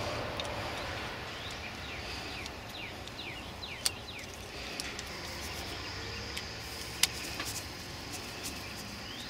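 A few sharp metal clicks from a socket driver and small screws on a bicycle's rear derailleur, over a steady outdoor background with birds chirping briefly.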